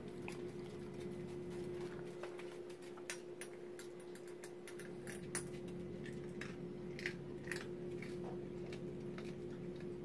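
Small dogs at a steel bowl of dry kibble on a tile floor: sparse, light, irregular clicks and crunches over a steady low hum.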